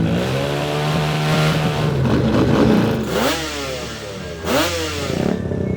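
Motorcycle engine running and being revved, its pitch rising and falling, with two quick sharp swoops in pitch about three and four and a half seconds in.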